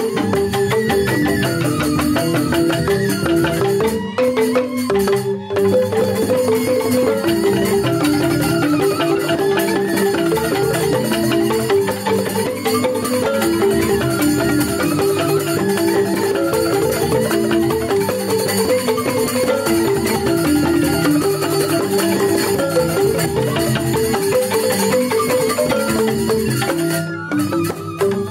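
Balinese joged bumbung gamelan playing: bamboo xylophones struck in fast, dense interlocking patterns, with bamboo suling flutes carrying a wavering melody above. The music breaks off briefly about four and five seconds in.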